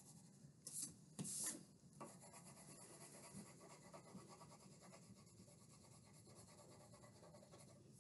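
Faint scratching of a Sharpie marker drawing on paper, with two short strokes in the first second and a half and then only a soft rubbing.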